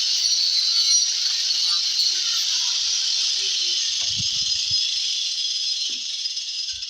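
Power tool, most likely the angle grinder used on this box, cutting into the wooden speaker enclosure with a steady high-pitched grinding noise, with a few light knocks midway; it winds down just after the end, the cut finished.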